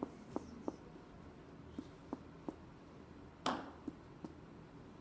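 Finger-on-finger percussion of the abdomen: short, sharp taps in three sets of three, the first tap of the last set the loudest. The taps move up from the right lower abdomen towards the liver's lower border, where the note turns dull.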